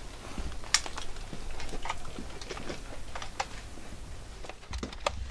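Rifle being handled in the hands: irregular sharp clicks and taps, about a dozen, the loudest about a second in and again past the middle.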